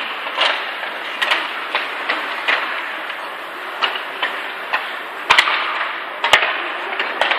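Ice hockey play: sticks clacking on the puck and ice, and skates scraping, over a steady arena background. There are two louder sharp knocks about five and six seconds in.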